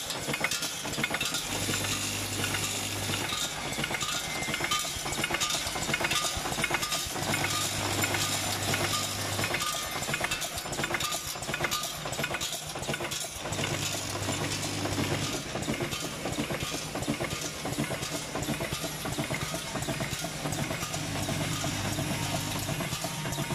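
High-speed screw packing machine running: a dense, steady metallic clinking and rattling of screws being fed through it, with a low hum that comes on for about two seconds every six seconds or so.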